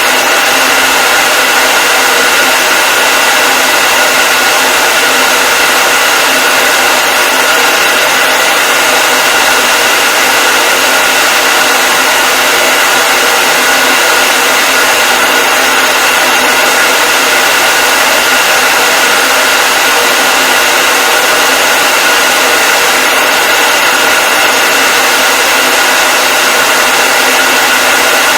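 Hair dryer running continuously: a steady rush of blown air with a constant high-pitched motor whine over it.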